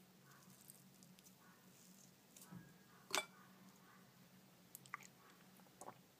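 Quiet, faint handling sounds of oily, chilli-coated fingers squishing and pressing spicy vegetarian 'beef' snack strips in a porcelain bowl: soft sticky ticks and a few small clicks, the sharpest about three seconds in, over a low steady hum.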